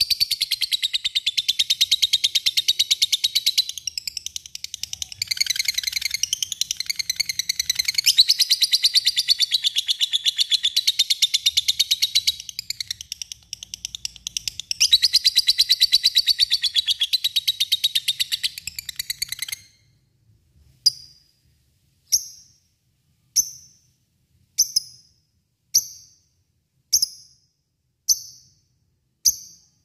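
Lovebird giving its long, fast chattering trill (ngekek) in runs of several seconds with short breaks, then switching about two-thirds of the way through to single sharp chirps, about one every second and a bit.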